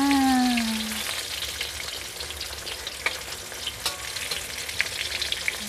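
Tofu and tempeh deep-frying in hot oil in a wok, a steady crackling sizzle, with a spatula knocking against the pan a couple of times midway. A person's short hum, falling in pitch, is heard right at the start.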